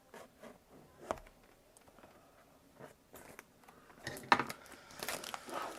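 A retail product box and its packaging being handled and opened by hand: scattered light taps and scrapes, a sharp knock about four seconds in, then a second or so of rustling and scraping.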